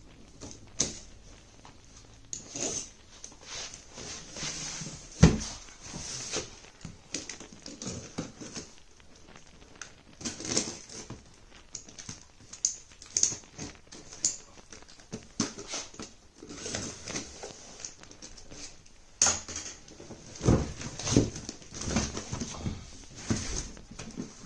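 Long cardboard shipping box being cut and opened by hand with a knife: irregular scraping and rustling of cardboard and tape, with scattered knocks, the loudest about five seconds in.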